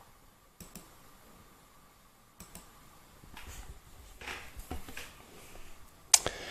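A few separate clicks a second or two apart, the last one sharpest, as a computer mouse is clicked to open a photo, with faint soft noise in between.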